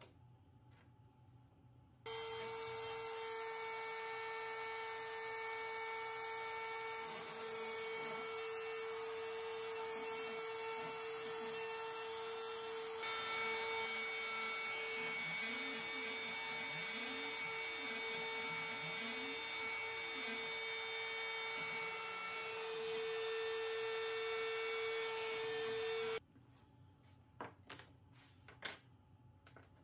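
CNC router's trim-router spindle running steadily at high speed while a 60-degree V-bit carves lettering into an end-grain butcher block, with lower whines rising and falling as the gantry moves. It starts abruptly about two seconds in and cuts off about 26 seconds in. A few sharp clicks follow near the end.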